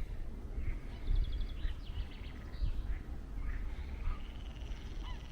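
Small birds calling and singing, several short chirps, with a rapid trill of repeated notes about a second in, over a steady low rumble.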